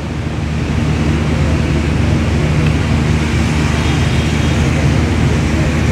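Steady low droning hum of running machinery over an even rushing background noise.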